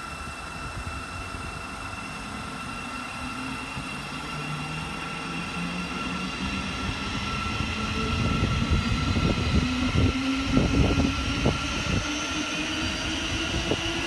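Siemens Desiro City Class 700 Thameslink electric unit pulling away, its traction motor whine rising slowly in pitch as it accelerates over a steady high-pitched tone. Rail rumble and wheel knocks grow louder in the second half.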